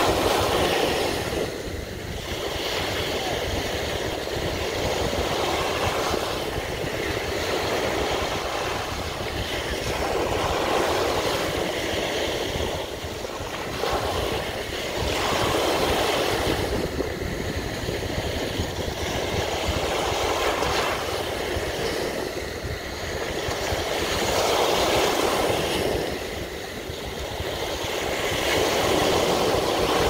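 Small ocean waves breaking close by and washing up a sandy beach, the surf swelling and easing every few seconds.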